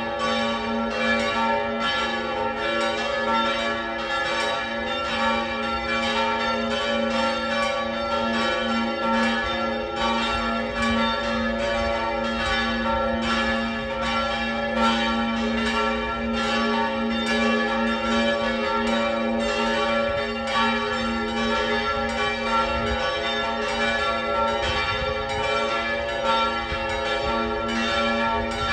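Church tower bells pealing, with continuous, closely overlapping strikes, rung at the consecration of the Mass.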